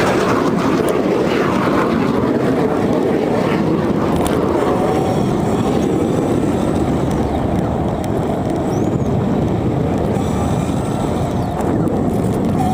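Steady rushing wind noise on a bicycle-mounted camera's microphone while riding.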